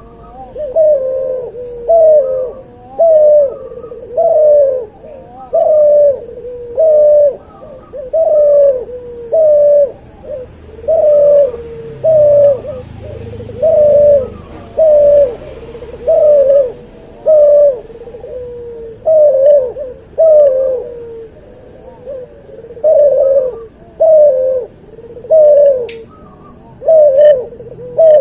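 Cuhu dove, a cross between an albino white puter and a puter pelung, cooing in a long unbroken run of loud coos, about one a second, each note sliding down in pitch.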